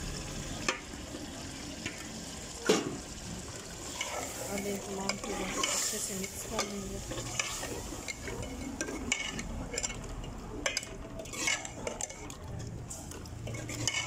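Spinach and beef curry sizzling in a metal pot as it is stirred with a metal spoon, with repeated scrapes and knocks of the spoon against the pot and one louder knock a couple of seconds in. Boiled spinach is being worked into the fried beef masala.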